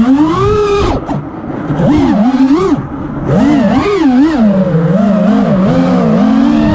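FPV quadcopter's electric motors and propellers whining, the pitch constantly rising and falling with the throttle, dropping away briefly about a second in and again near three seconds.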